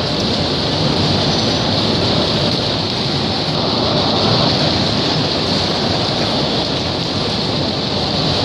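Bumper cars running around an indoor rink: a steady, loud rushing din with no distinct collisions standing out.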